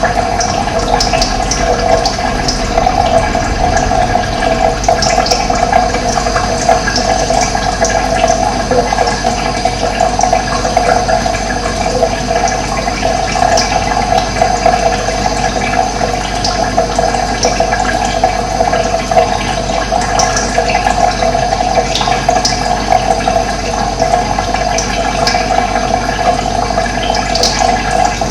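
Steady rush of running water, with short high bird chirps here and there.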